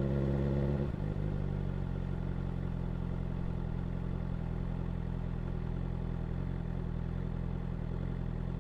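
BMW S1000R inline-four engine idling steadily. About a second in, its note changes abruptly and settles to a slightly quieter, even idle.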